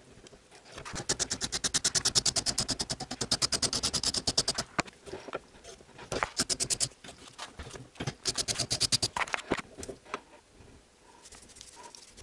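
Hand wire brush scrubbing grime off a bolt clamped in a vise. The fast back-and-forth strokes, about eight a second, come in one long run of nearly four seconds starting about a second in, then two shorter runs.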